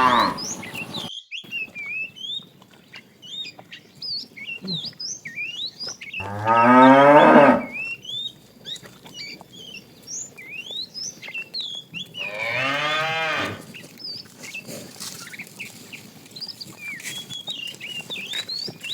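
Cattle mooing: one moo ending just after the start, a loud moo about six seconds in that falls in pitch, and another about twelve seconds in. Small birds chirp throughout between the calls.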